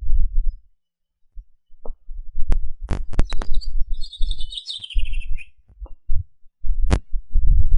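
Wind buffeting the microphone in gusting low rumbles, with a few sharp clicks. A bird's chirping call of quick high notes sounds about four seconds in.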